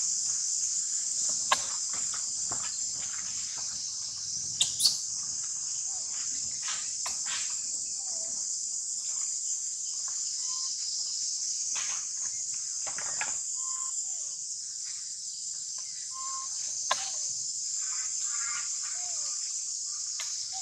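Steady, high-pitched insect chorus, with a few sharp clicks and brief short chirps scattered through it.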